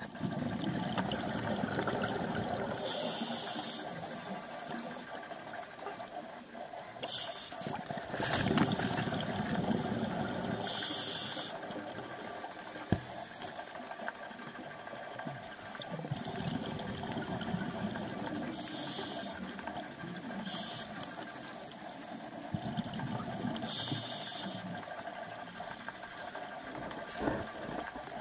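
Scuba diver breathing underwater through a regulator: short hissing inhales alternate with longer rumbling streams of exhaled bubbles, a few seconds apart.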